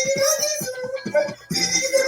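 Upbeat children's song music with a steady beat and plucked instrument notes.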